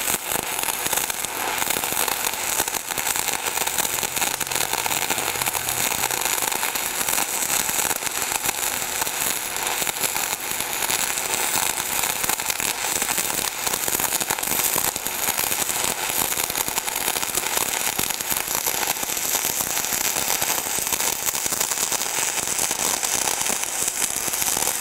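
Gas-shielded cored-wire arc welding: the wire-feed arc runs without a break, with a dense, even crackle of spatter, while the root pass is laid into an open-gap joint over ceramic backing tape.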